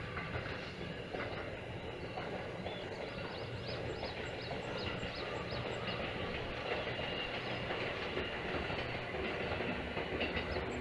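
Seibu Railway electric train running along the line: a steady rumble of wheels on rail.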